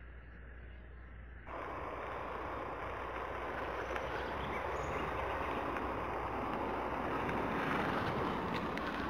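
Steady rush of road and wind noise inside a moving car, coming in suddenly about a second and a half in and then running on evenly.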